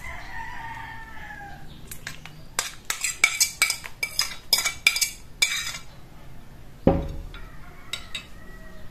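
A metal fork scraping and tapping mashed banana off a glass plate into a stainless steel bowl: a quick run of sharp clinks, about three or four a second, starting about two and a half seconds in. A single heavy thump near the end as the plate is set down on the table, and a rooster crowing in the background at the start.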